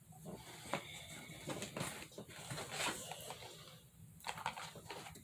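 Irregular crinkling and clicking of plastic blister packs and cardboard cards being handled and opened.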